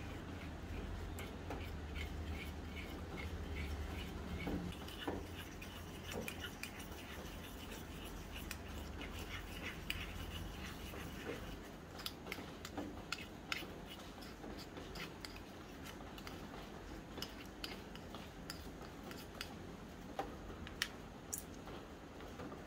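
Tiny metal spatula scraping and clicking against a miniature steel pan as a thick coconut mixture is stirred, with scattered light metallic clinks. A faint low hum underneath stops about halfway through.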